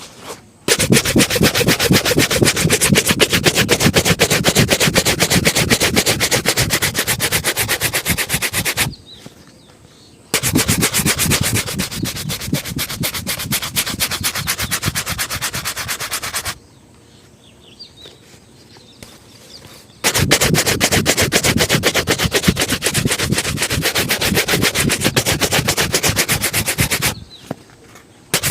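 Rapid back-and-forth shoe-shine strokes rubbing over a leather shoe, fast and even, in three long runs of several seconds each separated by short pauses, with a brief run starting again at the end.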